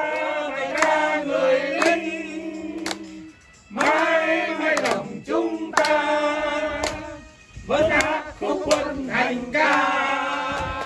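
Two men singing a Vietnamese marching song together without accompaniment, clapping their hands in time about once a second. The song runs in long held phrases with short pauses for breath between them.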